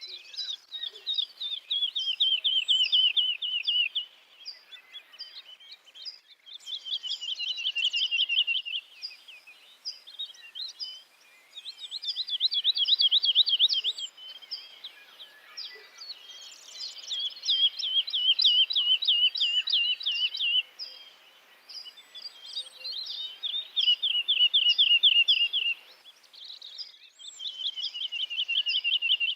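Songbirds singing: one bird repeats a rapid trilled phrase of two to four seconds, falling slightly in pitch, about every five seconds, while another gives short high chirps at a steady pace in between.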